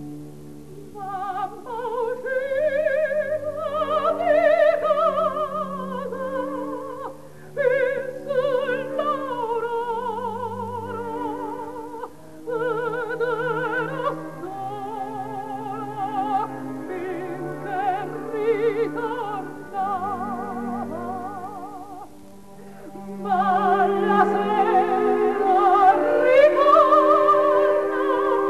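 Operatic soprano singing with a wide vibrato over orchestral accompaniment, in phrases broken by short pauses, swelling louder in the last few seconds.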